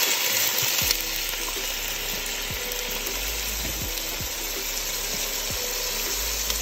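Potatoes frying in a hot pan: a steady sizzling hiss, slightly louder in the first second.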